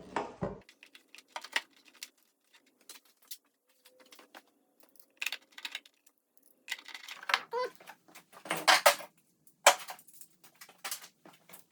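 Scattered clicks, taps and rattles of parts being handled as the dash console is fitted back onto the motorcycle's fuel tank, with a few longer scraping rustles about seven to nine seconds in.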